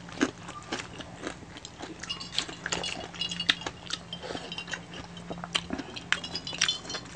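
Close-miked eating sounds: a quick run of wet chewing, lip-smacking and small clicks as crispy pata, deep-fried pork knuckle, is picked at and eaten by hand. A faint steady hum lies underneath.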